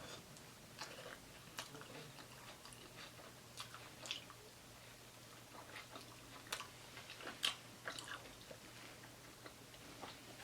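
A person chewing and biting into a chicken cheesesteak sandwich, close up: irregular soft mouth clicks and smacks, a few louder ones a little past the middle.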